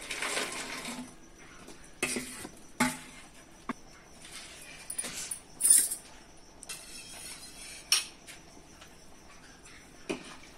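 Paneer cubes tipped from a bowl splash into boiling gravy in a metal kadhai. A steel ladle then stirs the curry, scraping and clinking against the pan several times.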